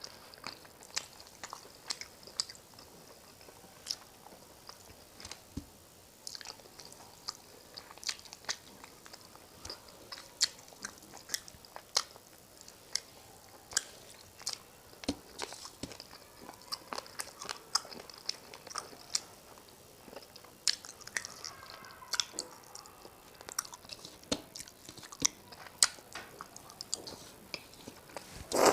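Close-miked chewing and mouth sounds of someone eating a rice and fish curry meal: many short wet clicks and smacks, several a second, with a louder knock at the very end.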